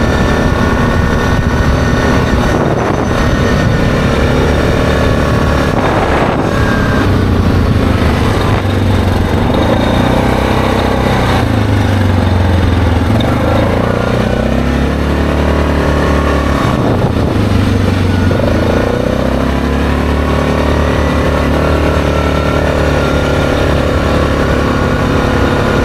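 ATV engine running under way, its pitch dipping and then climbing again twice, once near the middle and once about two-thirds through, as the machine slows and speeds back up.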